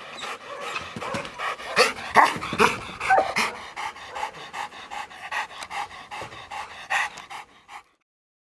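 A Rottweiler panting with its tongue out, a quick run of even breaths that cuts off suddenly near the end.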